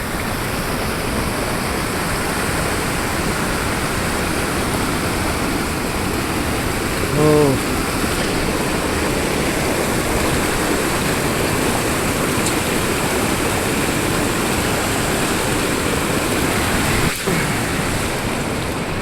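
Loud, steady rushing of water, with a short pitched sound breaking through about seven seconds in.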